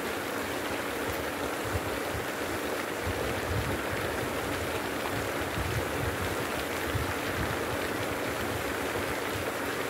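Steady rushing splash of a pond aerator churning the water surface, with irregular low rumbles underneath.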